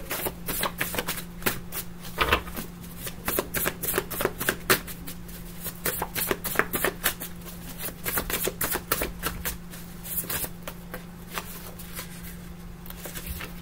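A tarot deck being shuffled by hand: quick runs of card flicks and slaps, with a short pause about halfway and fewer near the end.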